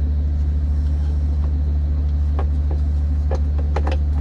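Diesel engine idling with a steady low hum, with a few light knocks in the second half.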